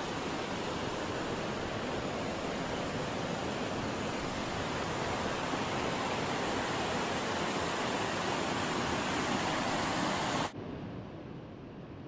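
Steady, even rushing noise that drops suddenly to a fainter hiss near the end.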